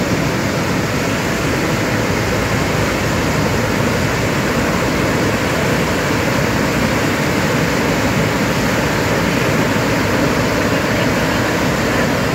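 Steady rush of water pouring through the open sluices of a canal lock as the chamber fills.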